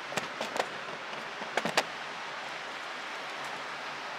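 Steady rushing hiss of air handling, with several sharp clicks and knocks in the first two seconds.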